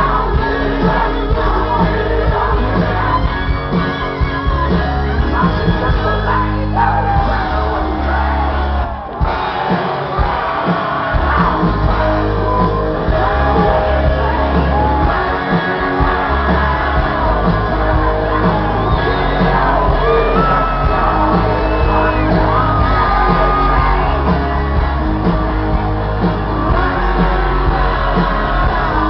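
Loud live rock music from a band playing through a stadium sound system, with singing and shouts from the audience over a heavy, steady bass. The sound dips briefly about nine seconds in.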